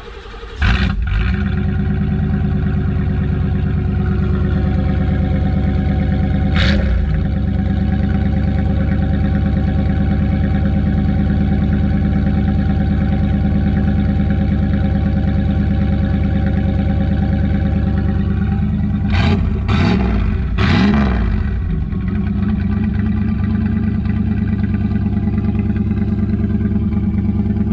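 A 1993 Chevrolet Caprice wagon's 305 small-block V8 on a cold start, catching right at the start and then idling steadily through its aftermarket exhaust. The engine is blipped once about 7 s in and twice quickly around 20 s.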